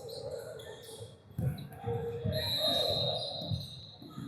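Sideline game noise: indistinct spectator voices with a sharp knock about a second and a half in and a thin high note lasting about a second around the middle.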